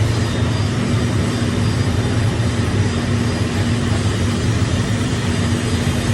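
Arc welding: a steady electrical hum with an even hiss over it, unchanging throughout.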